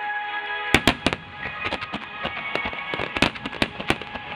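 Aerial firework shells bursting: two loud bangs just under a second in, then a rapid, irregular run of sharp cracks and pops, over music playing.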